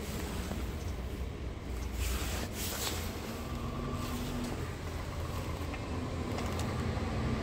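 Scania R truck's diesel engine idling, a steady low rumble heard from inside the cab. About two seconds in there is a brief sliding rush as the plastic storage drawer under the bunk is pulled out.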